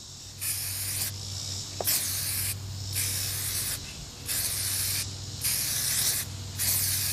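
Aerosol can of UV-protective headlight sealant spraying in about six short bursts, each around half a second long, as a coat is laid across a sanded headlight lens.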